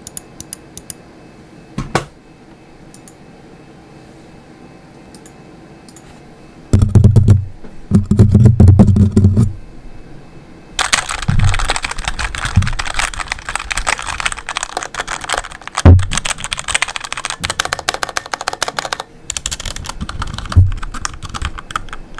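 Computer keyboard being typed on: a few scattered key clicks at first, then a stretch of heavy low thudding mixed with clicks, then fast continuous typing with a few louder, deeper key hits. There is a short pause before a last burst of typing near the end.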